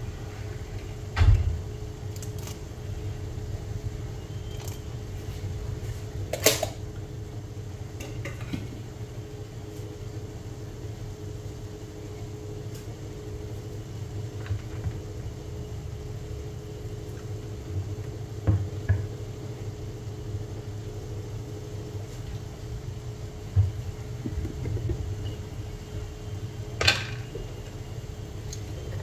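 Steady low hum of a running kitchen appliance, with a faint constant tone in it, broken by a handful of sharp clicks and knocks, the loudest about a second in, around six seconds in and near the end.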